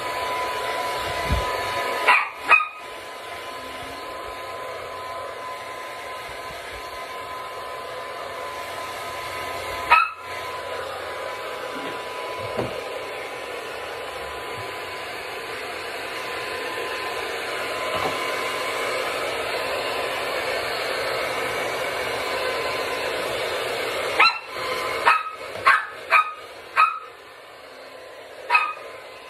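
Handheld hair dryer blowing steadily at a small dog, which barks in short yaps: twice near the start, once about ten seconds in, and a quick run of about six near the end.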